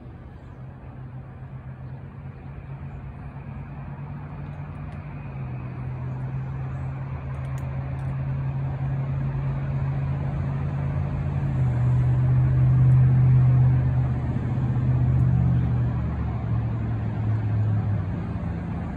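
A motor vehicle's engine, a low steady hum that grows louder for about twelve seconds, is loudest about thirteen seconds in, then eases off a little.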